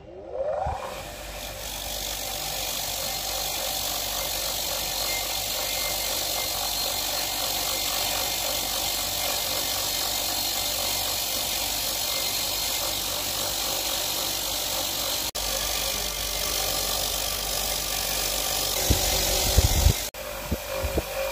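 Bench grinder's wire wheel spinning up, then running steadily while rusty steel threads on an antique rifle part are held against it, a steady harsh brushing over the motor's hum. A few heavy knocks come near the end.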